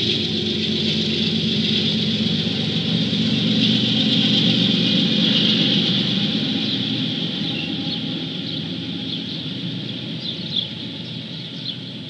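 Diesel-electric freight locomotives, among them a Norfolk Southern ES44AC, rumbling past and fading as they move away. Short bird chirps are heard near the end.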